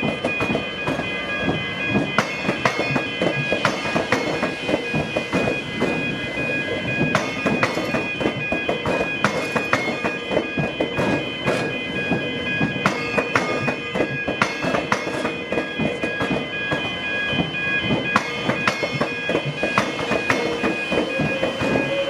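Electric suburban train passing over a railway–tram diamond crossing, its wheels clattering in a dense run of knocks. Steady high ringing tones run under the clatter, and a tone rises near the end.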